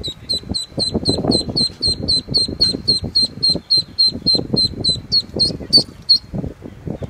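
Ducklings peeping: a steady series of short, high, downward-slurred peeps, about four a second, louder toward the end and stopping about six seconds in. Low rustling and knocking of handling runs underneath.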